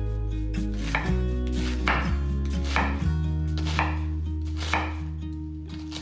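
Chef's knife dicing an onion on an olive-wood cutting board: five even chops, roughly one a second, each a sharp knock of the blade through the onion onto the board. Steady low sustained tones run underneath.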